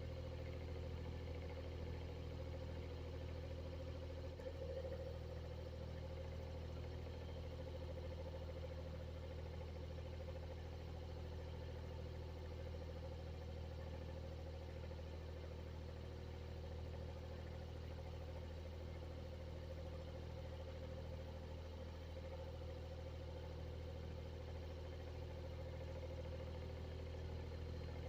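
Exhaust fan running steadily: a low motor hum with a steady higher tone above it.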